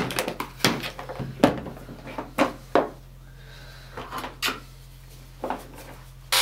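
Hard plastic tool case being opened and handled as a power tool is lifted out: a series of sharp plastic clicks and knocks, busiest in the first three seconds, then a few scattered knocks.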